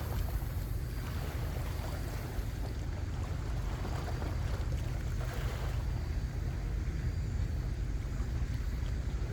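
Wind buffeting the microphone outdoors by the sea: a steady low rumble with a fainter hiss above it.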